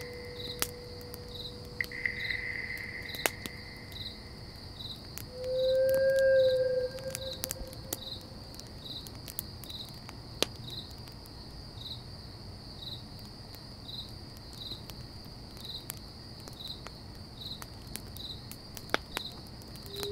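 Crickets chirping steadily: a continuous high trill with regular pulses about one and a half times a second. There are scattered sharp clicks, and a short low tone swells and fades about six seconds in.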